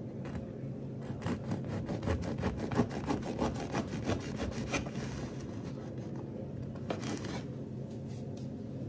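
Quick, repeated rubbing or scraping strokes, about seven a second for several seconds, with a shorter run again near the end, over a steady low hum.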